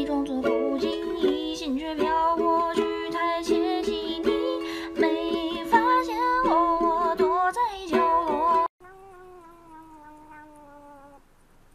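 Upbeat ukulele background music that cuts off abruptly about nine seconds in, followed by a faint, long cat's cry that slowly falls in pitch.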